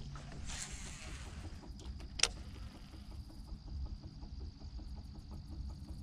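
Fishing reel being cranked to retrieve a jig, giving a rapid, even ticking, with a sharp click about two seconds in and a brief hiss just after the start.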